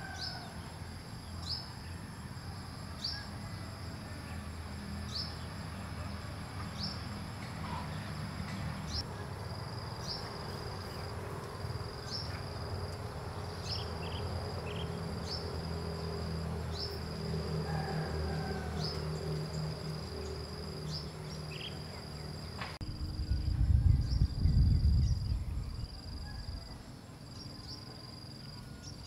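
An insect calling over and over, a short falling chirp followed by a held high buzz about every second and a half. A low, steady rumble lies underneath, with a louder low rumble for a few seconds near the end.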